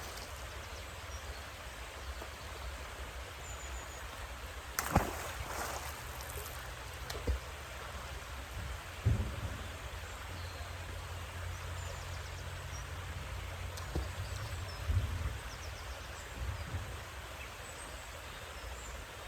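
Outdoor ambience with a steady low rumble and a handful of short knocks and clatters. The loudest, about five seconds in, is followed by a brief hiss.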